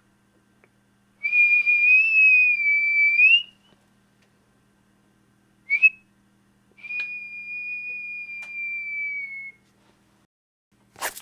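A high whistle sounding three times: a held note of about two seconds that rises at its end, a short chirp, and a longer steady note that sags slightly in pitch as it stops. A sharp click comes near the end.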